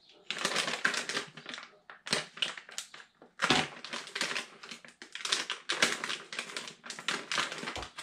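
Plastic bait packet crinkling and crackling in the hands as it is handled and opened, in several spells of quick crackles with short breaks.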